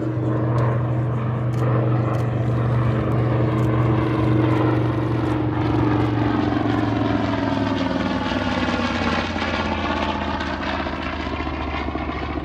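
Grumman TBM Avenger's Wright R-2600 twin-row radial engine and propeller droning in a low flypast, loud at first, then falling in pitch from about six seconds in as the aircraft passes and moves away, with a sweeping, phasing quality in the later part.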